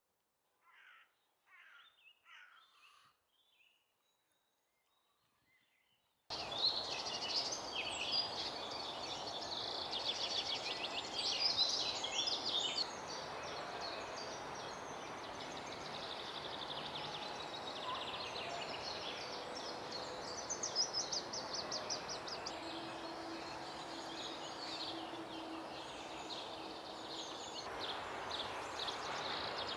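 Several songbirds singing in a spring chorus, with fast, high trills, over a steady background noise. It starts with a few faint, short calls and swells into full song after about six seconds.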